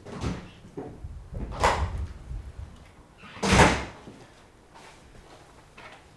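Two door sounds, each a short bang, about a second and a half in and again, louder, about three and a half seconds in.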